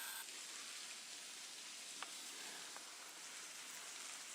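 Faint steady hiss of outdoor background noise, with a single faint click about two seconds in.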